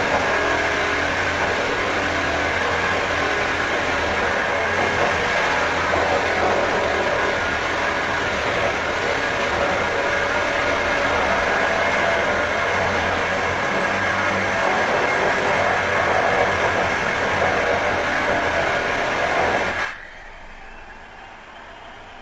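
Power drill running steadily with a whine, then stopping near the end.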